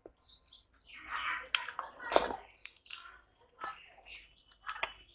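Close-up eating sounds: chewing and wet mouth sounds as fingers wipe curry off a stainless steel plate and are licked clean, with one louder wet sound about two seconds in.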